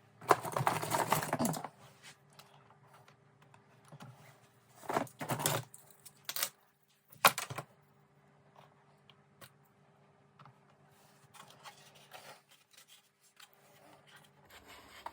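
Small objects being handled and set down on a workbench: a rattling clatter about a second long near the start, two shorter rattles around five seconds in, a sharp click a little after seven seconds, then faint light knocks, over a low steady hum.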